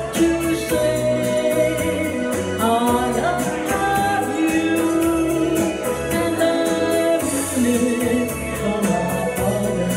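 A solo singer singing into a microphone over instrumental accompaniment with a steady beat.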